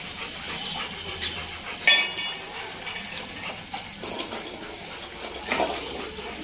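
Steel dog food bowls clanking and scraping on a tiled floor as dogs move among them and eat. One loud ringing clang comes about two seconds in, with scattered lighter clicks and knocks throughout.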